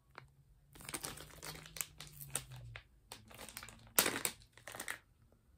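Clear plastic bag of wax melts crinkling and rustling as it is handled and opened: an irregular run of crackles, loudest about four seconds in.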